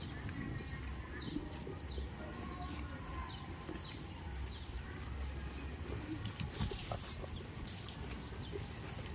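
A small bird repeating a short, high call that slides downward, about twice a second, stopping about halfway through, over a low steady rumble.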